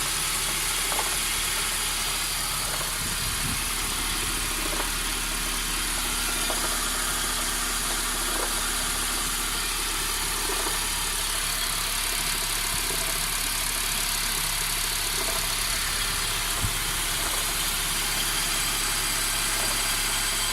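Honda Accord R20A3 2.0-litre four-cylinder engine idling with an irregular noise: short ticks at uneven moments over a steady hum, the sharpest one about three quarters of the way through. The owner does not know its cause.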